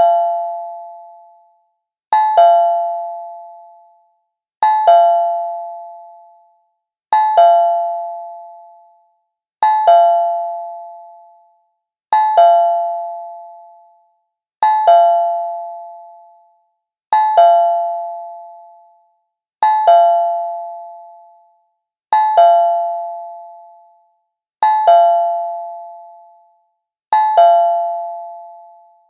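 Cartoon two-tone doorbell chime, a ding-dong: a short higher note and then a lower note that rings out and fades. It repeats about every two and a half seconds, roughly a dozen times.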